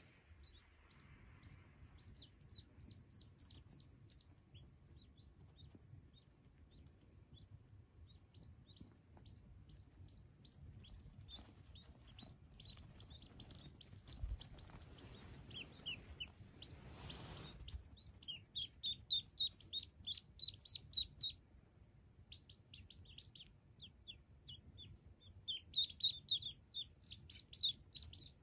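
Call duck ducklings peeping: runs of quick, short, high peeps, several a second, in bursts that come and go and are loudest after the middle and near the end. A brief rustle comes a little past the middle.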